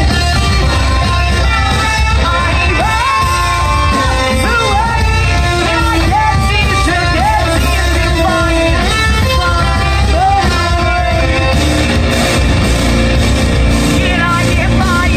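Metalcore band playing live: guitars, bass and drums with a vocalist singing a melody over them, loud and dense throughout.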